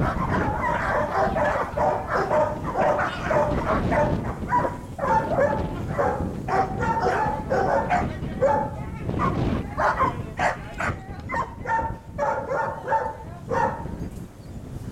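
Dogs barking in a rapid, continuous string at an agitating decoy during protection bite-work training, several barks a second, thinning out near the end.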